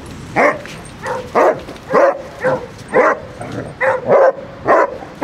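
Basset hound barking over and over, short loud barks coming about twice a second.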